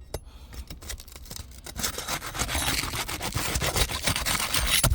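A roofing tool scraping and crackling as it is slid under asphalt shingles, tearing through the adhesive seal strip between the courses. Sparse scrapes at first, then a dense run of scraping and small cracks from about two seconds in, loudest near the end.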